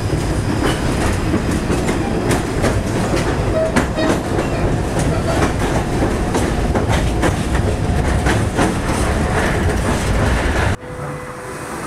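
Inside a moving 71-933 Lev tram: a steady rumble of the wheels on the rails, with frequent clicks and rattles. Near the end the sound drops suddenly to a much quieter hum with a faint steady tone.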